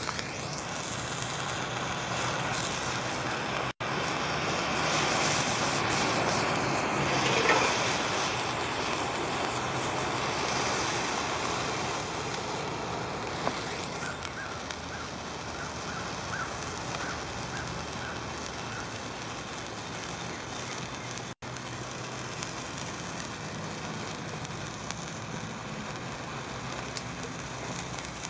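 Handheld sparklers burning, a continuous crackling hiss that is loudest a few seconds in and cuts out for an instant twice.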